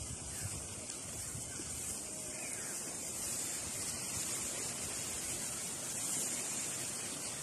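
Steady outdoor hiss, strongest high up, with light wind rumbling on the microphone; no calls from the cattle.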